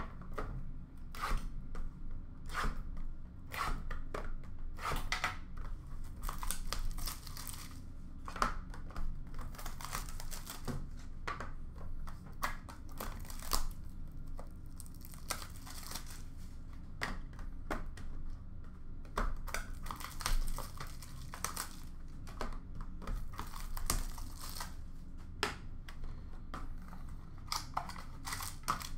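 Thick plastic wrapping being torn and crumpled off small trading-card boxes by hand: irregular crinkling and crackling that goes on throughout.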